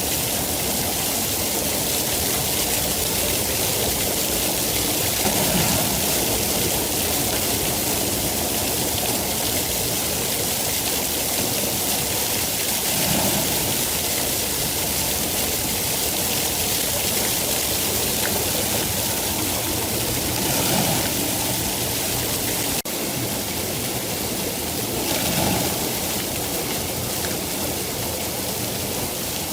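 Steady heavy rain, an even hiss with a few brief swells lower down. The level drops suddenly and slightly about three-quarters of the way through.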